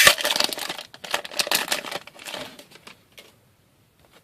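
Crinkling foil wrapper of a hockey card pack being handled and opened, densest in the first second, then patchier and dying away about three seconds in.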